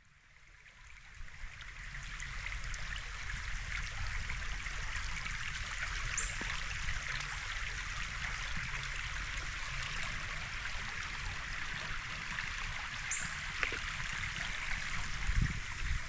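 Steady rush of running water, like a stream or creek, fading in over the first couple of seconds, with two brief high chirps partway through.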